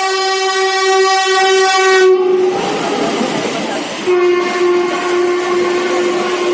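Indian Railways train horn sounding two long blasts: the first cuts off about two and a half seconds in, and the second starts about four seconds in and holds on. Between the blasts comes the noisy rumble of the running train.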